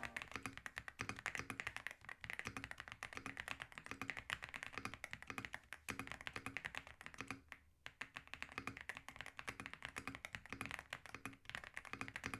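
Typing on a YUNZII X98 mechanical keyboard, a gasket-mounted board with a transparent plastic case: a quick, continuous run of keystroke clicks, with a short pause about seven and a half seconds in.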